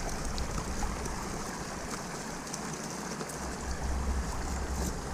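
Steady rush of flowing river water, with faint small clicks and rustles of a nylon net being handled as fish are picked out of it. A low rumble comes in about three seconds in.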